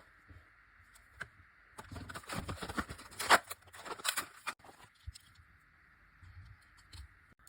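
Toy car packaging being handled and opened: about three seconds of crackling, rustling handling noise from about two seconds in, with a few light clicks before and after.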